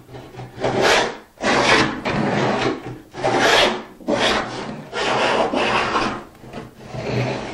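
Dado plane cutting a dado across the grain in repeated strokes, about six, each a scraping burst of the iron taking a thick shaving, with short pauses between them.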